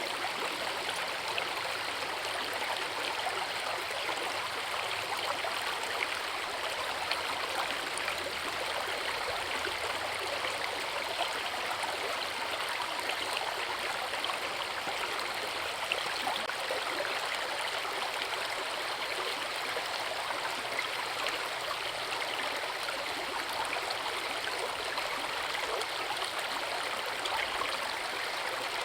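Forest river and waterfall rushing, a steady, unbroken splashing hiss of water.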